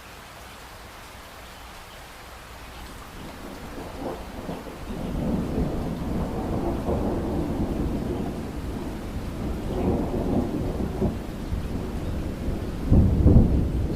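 Steady rain, joined from about four seconds in by a rolling rumble of thunder that swells and peaks loudest near the end.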